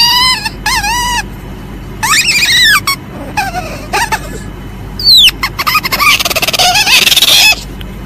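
Asian palm civet calling: a series of shrill, wavering squeals, each under a second long. About five seconds in comes a quick falling squeal, followed by a longer, harsh rasping call.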